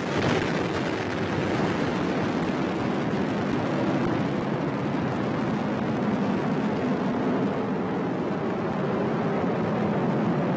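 Atlas V rocket's RD-180 main engine and two solid rocket boosters firing during the climb after liftoff: a steady, loud, crackling rumble.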